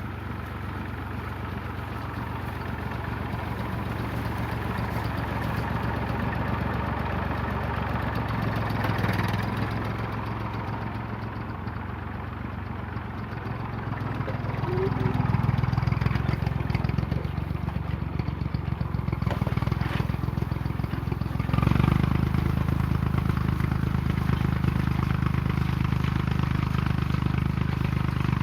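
Small Ferguson tractor engine running continuously while raking hay with a rotary rake. The engine note shifts and grows louder about halfway through and again near the end, as load or throttle changes.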